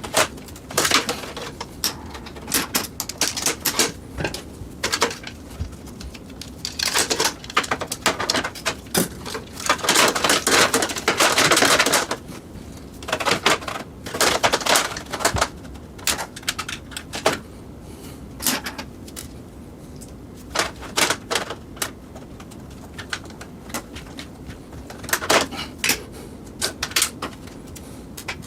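Hands handling hard plastic and metal parts: irregular clicks, taps and rattles, with a louder stretch of scraping about ten to twelve seconds in.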